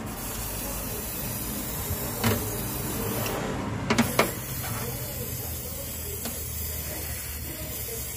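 Aerosol contact cleaner hissing as it is sprayed into the open PC case, pausing briefly around the middle, with a few sharp clicks from handling the can and parts.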